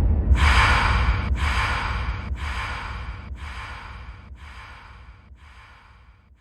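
Dancehall DJ sound effect: a breathy noise burst repeated about once a second by an echo, each repeat fainter, over the fading tail of a deep boom.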